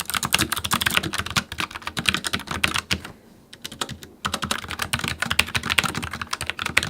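Fast typing on a Logitech MX Mechanical Mini low-profile mechanical keyboard, a dense run of keystrokes that stops for about a second partway through and then carries on.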